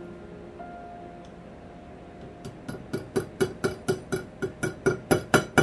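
Rapid light hammer taps on metal, about five a second and getting louder, each with a short ring: a part being driven into a Dana 300 transfer case until it seats.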